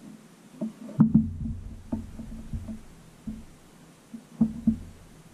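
Scattered light knocks and dull thumps of hands handling parts and tools on a wooden board, the loudest about a second in and again near the end.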